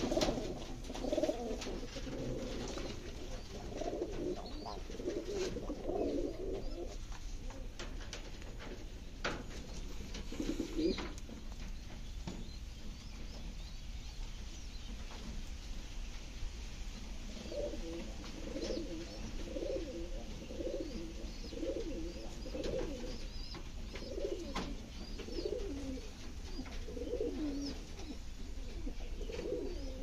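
Fancy pigeons cooing: a run of low coos for the first several seconds, one more in the middle, then a steady string of rhythmic coos through the second half.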